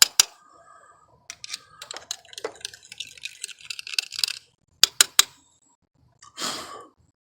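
Irregular clicking and light scraping of a hand tool working on corroded car battery terminals, with a few sharp metallic clicks and a short rasp near the end.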